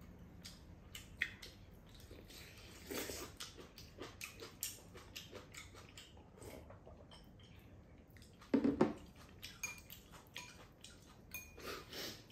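Two people eating jajang noodles: slurping and chewing, with chopsticks and a spoon clicking against ceramic bowls in a run of small irregular clicks. One louder burst comes about two-thirds of the way through.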